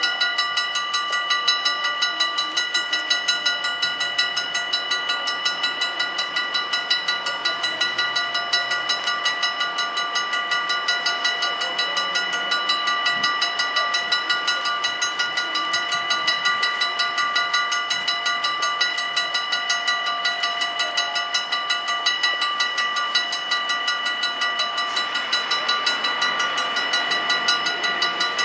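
Mechanical bells of a Dutch AHOB level crossing ringing continuously with rapid, even strikes, several clear ringing tones sounding together, the warning that the crossing is closed for an approaching train. A rushing noise grows beneath the bells near the end.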